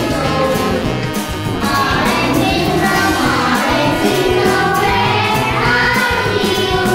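Children's song: upbeat backing music with a steady beat and sung melody, in the style of a nursery rhyme.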